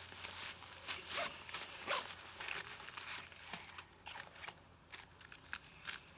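A bag being opened and rummaged through: a quick run of rustling, scraping handling sounds, busiest in the first three seconds, easing off, then a few light clicks near the end.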